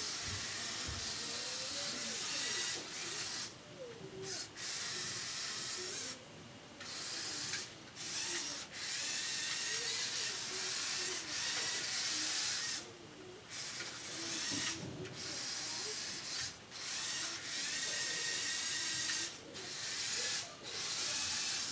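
Small Lego robot's electric motors and gears whirring as the omniwheel chassis drives across carpet, the pitch of the whine wandering up and down. It cuts out briefly and starts again several times as it changes direction.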